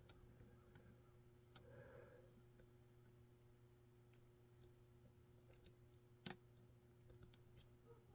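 Lock pick and tension wrench working the pin stacks of a Mul-T-Lock Junior pin-in-pin cylinder: faint, irregular small clicks, about ten of them, with one louder click about six seconds in, over a faint steady hum.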